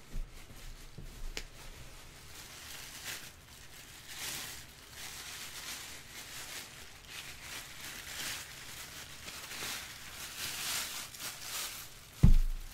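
Plastic bag wrapping crinkling and rustling in irregular swells as it is handled and pulled off a statue piece, with one dull thump near the end.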